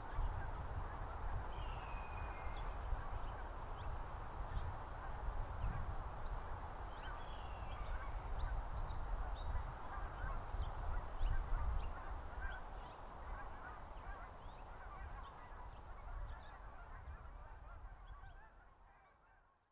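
A large flock of geese honking, a dense continuous chatter of many calls, over a low rumble. The sound fades out near the end.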